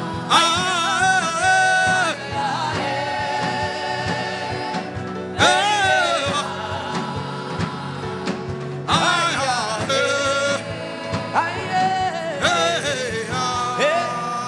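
Gospel worship singing: a voice sings long, wavering held phrases over a steady instrumental backing.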